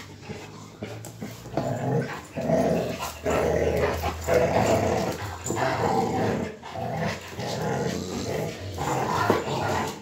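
Two Rottweilers growling as they tug a motorcycle tyre between them in a play-fight. The growls come in repeated long bursts and grow loud after about a second and a half.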